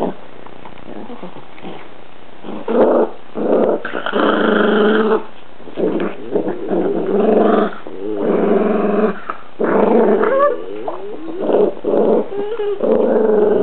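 Chinese Crested dog growling in repeated bouts about a second long each, starting a few seconds in, guarding a chew ear from another dog that is trying to take it.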